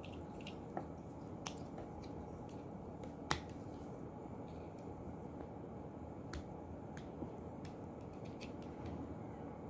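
Scattered sharp clicks of small plastic and metal parts of a DC magnetic contactor being handled and pried at during disassembly, the loudest about a third of the way in, over a steady low background noise.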